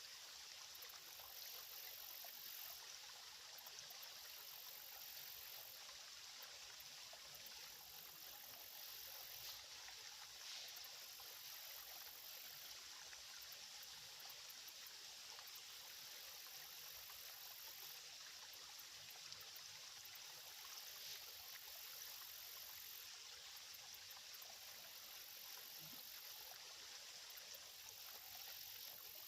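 Faint, steady trickle of a small, shallow creek running.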